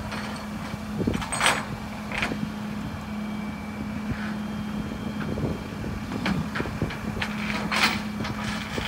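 Flatbed tow truck running with a steady hum, with a few short clanks scattered through as the wrecked car is hooked up to the tilted bed.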